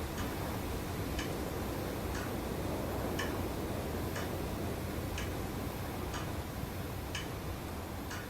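A clock ticking slowly and evenly, about once a second, over a steady low room hum.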